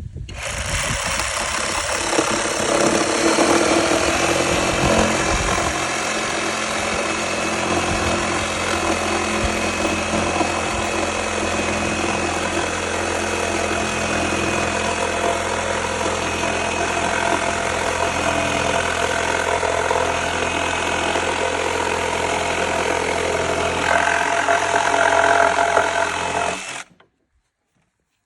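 Electric saber saw running and cutting wood: a steady motor drone with the blade's rasp over it, a little louder near the end, then cutting off suddenly about 27 seconds in.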